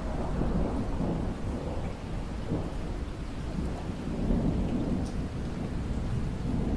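Steady rain with a long, deep rumble of thunder that swells in at the start and keeps rolling.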